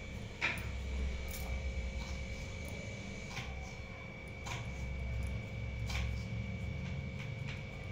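Light, scattered clinks of glass bangles on the wrists as hands press and roll besan ladoo mixture, over a steady background hum.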